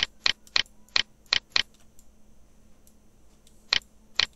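Computer mouse button clicking: six quick clicks in the first second and a half, then two more near the end.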